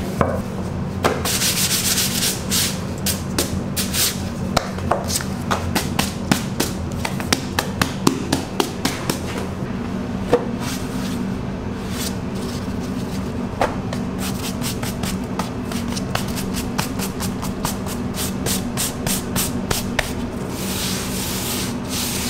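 Gloved hands pressing, rubbing and stretching raw pizza dough in a metal pizza pan: a dense run of soft taps and clicks with brushy rubbing, over a steady low hum.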